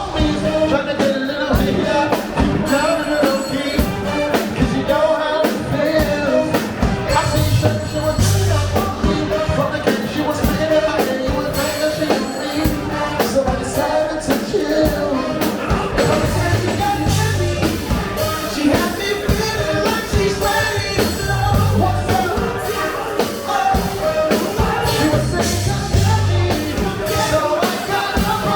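Live funk and soul band playing with a singer, over a steady drum beat and bass.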